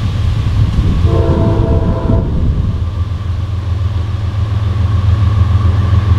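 Approaching CSX freight locomotive sounding its multi-tone air horn in one blast about a second in, lasting about a second and a half, over a steady low diesel rumble that slowly grows louder. The horn is sounded as the train nears the grade crossing.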